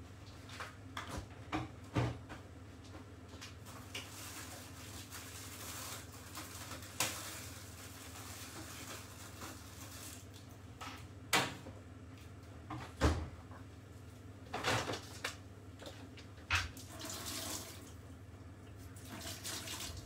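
Kitchen sink tap running in short spells, with scattered knocks and clatter of dishes and utensils, over a steady low hum.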